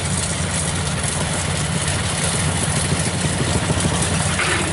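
Kubota rice combine harvester running steadily while it cuts and threshes rice: an even low diesel drone under a constant broad hiss of machinery.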